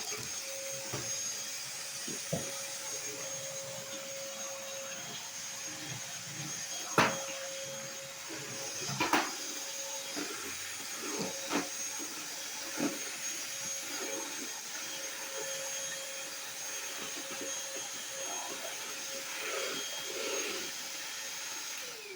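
Bissell 3-in-1 Turbo stick vacuum running steadily, its motorised turbo brush spinning, with a constant hum and a high whine. A few sharp knocks come through, the loudest about seven and nine seconds in.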